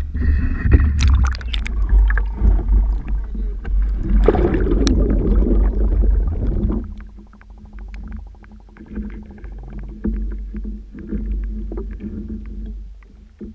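Muffled water sound picked up by the GoPro in its waterproof housing on a BlueROV2 ROV: water sloshing and splashing against it at the surface for about the first seven seconds. Then, once submerged, a quieter low underwater rumble and hum with scattered small clicks.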